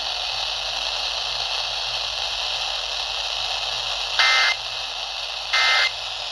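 Steady radio static hiss, then about four seconds in two short, loud Emergency Alert System data bursts, about a second and a half apart. These are the end-of-message (EOM) tones that close the alert broadcast.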